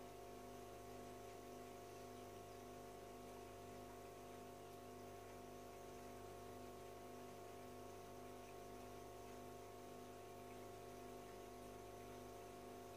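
Near silence with the faint, steady hum of the aquarium's electric filter pump running, several unchanging tones over a light hiss.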